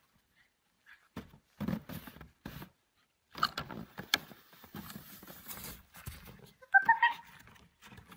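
Crunching and scraping of feet and a plastic sled on packed snow, in uneven bursts, then a short high-pitched yelp about seven seconds in as the sled tips over.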